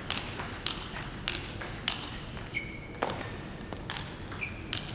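Table tennis rally: the celluloid ball clicking sharply off bats and table in a steady rhythm, about two hits a second. A short high squeak sounds twice, a little past the middle and near the end.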